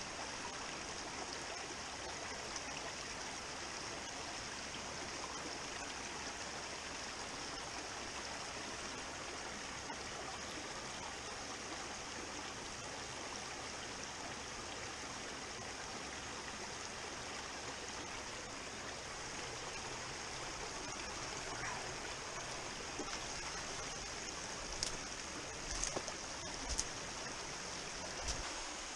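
Shallow mountain stream rushing over stones, a steady hiss of running water. A few sharp knocks near the end.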